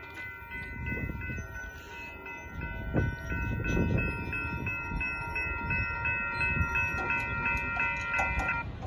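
Railroad grade-crossing warning bell ringing steadily while the Amtrak Texas Eagle passenger train runs past over the crossing with a low rumble and scattered wheel clicks on the rails. The bell stops suddenly near the end.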